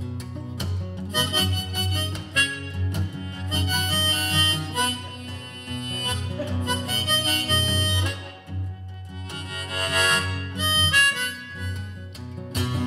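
Harmonica played in a neck holder over a strummed acoustic guitar: the instrumental intro of a folk-blues song, before the singing starts.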